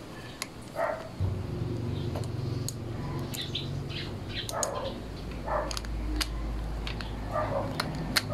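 Birds chirping briefly a few times over a steady low hum that starts about a second in, with light clicks and taps scattered throughout.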